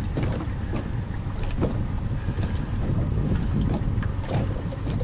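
Wind buffeting the microphone, with a few light clicks and knocks of wiring connectors being handled and plugged in at the kayak's engine.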